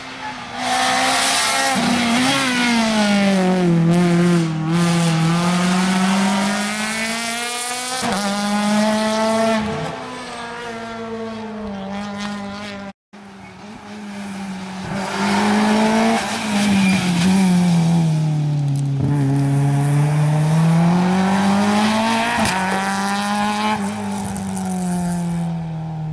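Two rally cars driven hard one after the other, with a sudden cut between them; the first is a Citroën C2. Each engine's note sinks as the car slows for the bend, then climbs again as it accelerates away.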